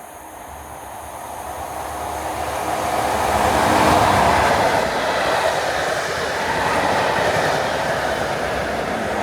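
Class 43 HST approaching and passing at speed. The rumble and rail noise build up steadily, peak about four seconds in, and stay loud as the train goes by.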